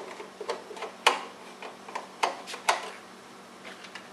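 Screwdriver and small screws clicking and tapping against a sheet-metal panel while screws are being put in: about seven sharp, uneven clicks over the first three seconds, the loudest a little after one second, then only faint taps.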